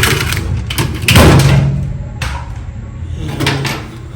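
Knocks and rattles of a tool working on a washer's shift actuator mounting, the loudest about a second in, over a low steady hum.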